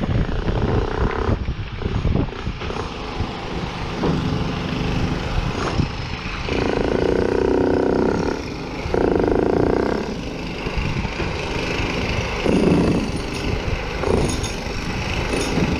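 Wind buffeting the microphone, with a motor running in two stretches around the middle, about two seconds and then about one second long.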